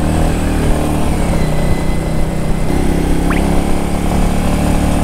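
Royal Enfield 350's single-cylinder engine running steadily at cruising speed, heard from the rider's seat. The engine note changes a little under three seconds in.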